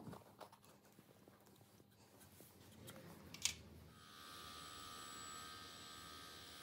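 Faint taps and clicks of a plywood zero-clearance insert being handled and seated in the steel throat opening of a table saw, with one sharper click about three and a half seconds in. After that comes a faint steady hiss with a thin high tone.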